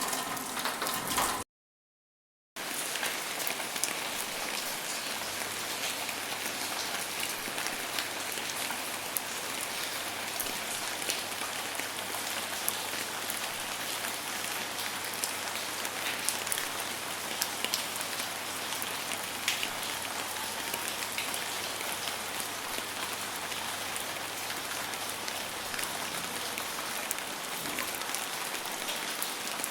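Steady rain falling on a surface: an even hiss with frequent sharp hits of single drops. It cuts out about a second and a half in, then starts again a second later and holds steady.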